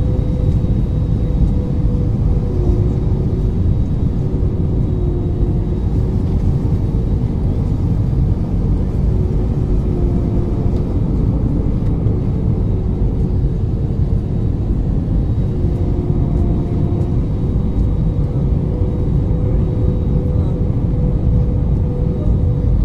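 Jet airliner cabin noise from a window seat over the wing: a steady low rumble of the engines and airflow, with a couple of steady hums and short higher hums now and then.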